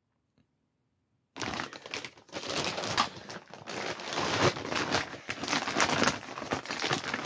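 Clear plastic bag crinkling and rustling as it is handled and pulled open, with many quick crackles. It starts about a second and a half in, after a short silence.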